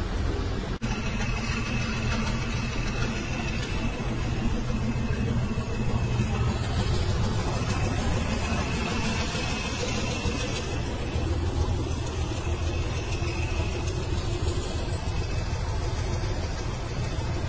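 Diesel engines of heavy multi-axle military transporter trucks running, a steady low engine sound.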